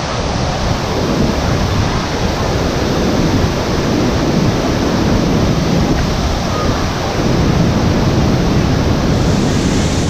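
Waterfall pouring onto rocks close by: a loud, steady rush of falling water.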